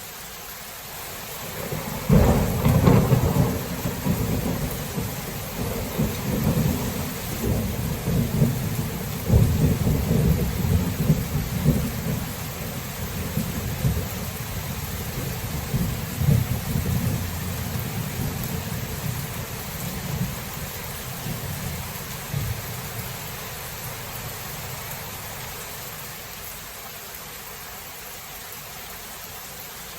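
Steady rain falling through a thunderstorm, with a thunderclap breaking about two seconds in and rolling on as a long, uneven low rumble that swells again several times before dying away a few seconds before the end.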